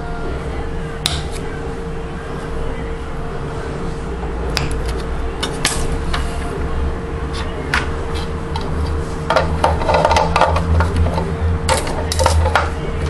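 Kitchen knife knocking and scraping on a granite countertop while slicing: scattered sharp clicks, then a busier stretch of clatter near the end, over a steady low hum.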